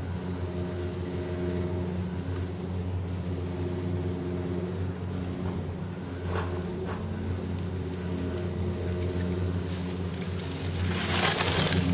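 A steady low mechanical hum, with a loud hiss of skis scraping across the snow that swells near the end.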